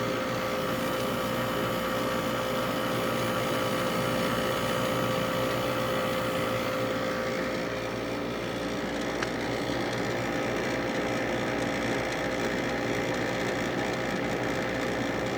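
Admiral window air conditioner running, its AJ compressor humming steadily at one pitch under the whoosh of the fan. The airy hiss lessens about halfway through.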